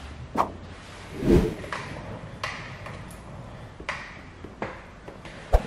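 Plastic card squeegee rubbing over wet paint protection film on a truck bumper, pressing out the leftover slip solution along a body line: a scatter of short faint scrapes and ticks, with one louder, longer rub about a second in.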